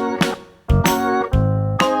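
Music: keyboard chords struck in a steady rhythm, a new chord with a sharp hit roughly every half second to second.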